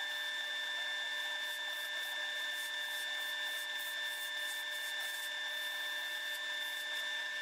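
Wood lathe spinning a hickory blank while a turning gouge cuts it: a steady high-pitched whine with a scratchy cutting noise as shavings come off. The sound is sped up along with the five-times-speed footage.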